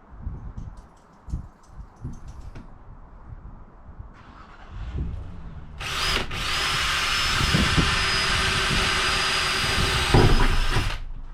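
Power drill running steadily for about five seconds, then stopping abruptly: drilling pilot holes in the corners of a roof-fan cutout. A few light knocks come before it.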